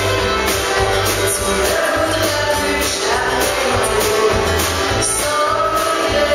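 A woman singing live into a microphone over backing music with a steady beat of percussion.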